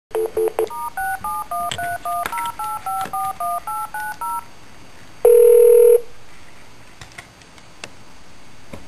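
Telephone call being placed: a moment of dial tone, then a quick run of touch-tone keypad beeps as a number is punched in, followed by one short ring of the ringback tone and faint line hiss with a few clicks.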